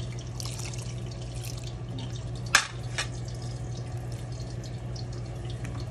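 A pot of mung bean soup bubbling on the stove while water is poured into it from a cup, over a steady low hum. Two sharp knocks come about two and a half and three seconds in.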